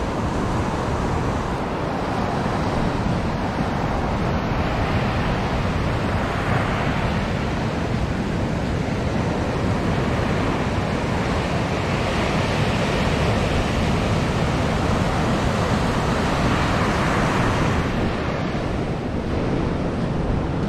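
Ocean surf breaking and washing up the beach, a continuous rush that swells and eases as the waves come in. Wind rumbles on the microphone underneath.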